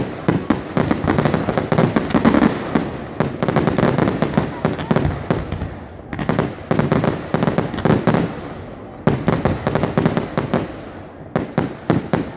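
Fireworks display: a rapid, dense barrage of bangs and crackle from bursting aerial shells, easing off briefly about six and nine seconds in before picking up again.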